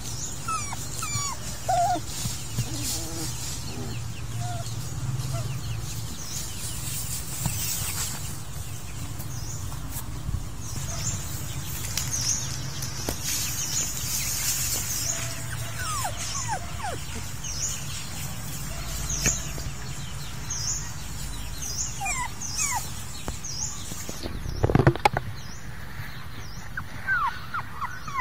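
Puppies whimpering: short, high squeaks that fall in pitch, coming every second or so, over a steady low hum. One louder, lower sound comes near the end.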